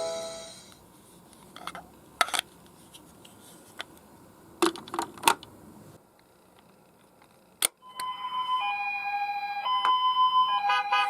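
Toy ambulance's electronic siren, switched on with a click about eight seconds in after a few quieter handling clicks. It alternates between a higher and a lower tone, each held about a second, in the two-tone pattern of a Japanese ambulance.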